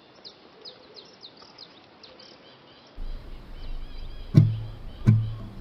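Faint birds chirping over low background hiss. About three seconds in a low hum starts, and near the end come two low thuds, each with a ringing tail, less than a second apart.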